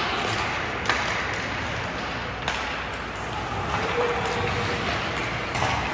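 Ice hockey play in a rink: two sharp clacks of puck and sticks, about a second in and again about two and a half seconds in, over steady rink noise.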